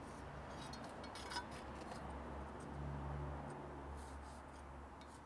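Faint scratching of a pencil drawing a line along a metal square on an oven floor plate, with light clicks of the square against the plate, over a low steady hum.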